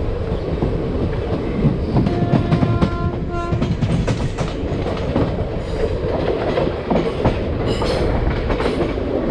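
Passenger train running slowly, its wheels clacking over rail joints and points. About two seconds in, a horn sounds for about a second and a half, breaking off briefly near its end.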